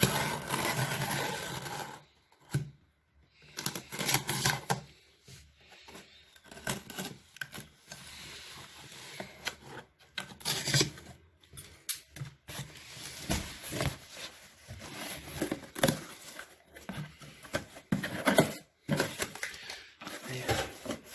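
A cardboard box and its packaging being opened and handled: irregular rustling, scraping and tearing in short bursts, some louder than others, with brief pauses between.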